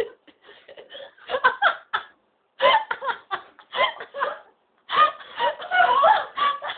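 Laughter in bursts: three spells of rapid laughing with short breaks between them.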